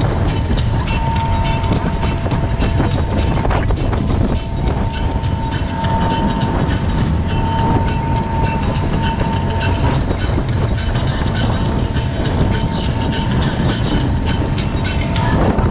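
Open tour boat running at speed: a steady loud engine rumble mixed with water rushing past the hull, and a thin steady whine running through it.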